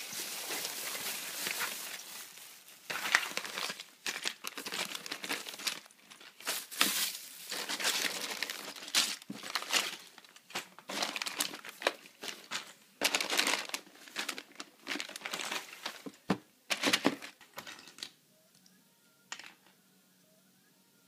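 Plastic zip-lock bags full of Lego pieces crinkling and rustling as hands dig through a plastic storage tub, with scattered sharp clicks and knocks. The rustling stops near the end.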